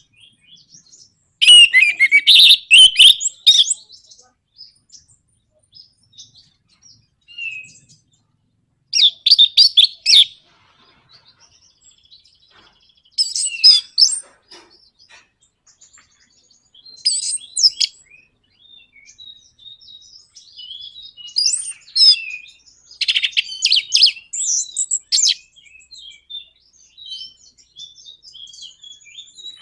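Orange-headed thrush singing in its rapid, rattling 'nratak' style: about six loud bursts of dense chattering notes, each a second or two long, with softer scattered single notes between them.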